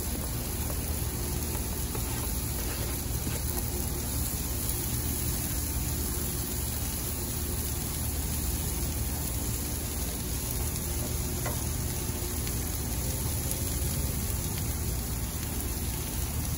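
Sliced bell peppers and onions sizzling steadily in oil on a hot Lodge cast iron griddle, with a few light scrapes of a metal spatula.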